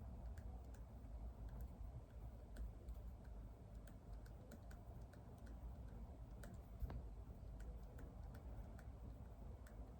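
Typing on a computer keyboard: faint, irregular key clicks, one louder about seven seconds in, over a low room hum.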